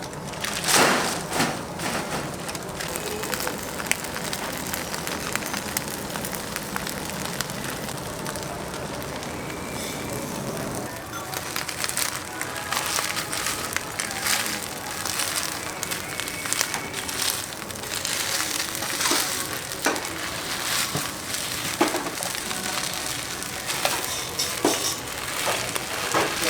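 Chicken sizzling and crackling over an oak-wood fire, with scattered short clicks and knocks throughout.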